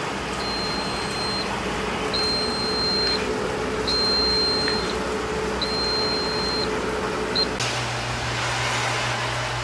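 An automatic ramen cooker beeps with long electronic tones, four about every 1.7 seconds and then a short one, over the steady hum of the machine. Shortly before the end the beeping stops and a lower steady hum takes over.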